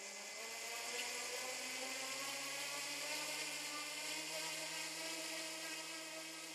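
Walkera Dragonfly 4#1 electric RC helicopter spooling up: the motor whine rises in pitch over the first two seconds, then holds a steady whine with rotor hiss.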